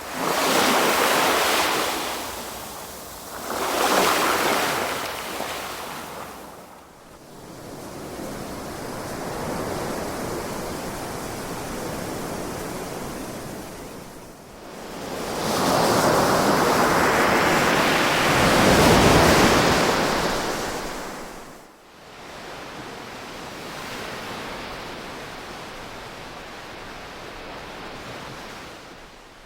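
Ocean waves breaking and washing in, with a softer wash between the surges. Surges come at the start, about four seconds in, and in a longer, louder one from about fifteen to twenty-one seconds.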